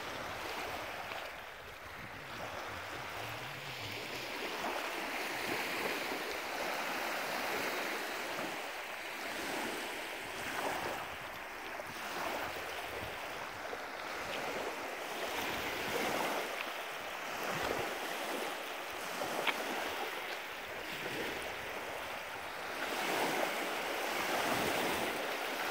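Small lake waves lapping and washing onto a pebble beach, swelling and easing every few seconds.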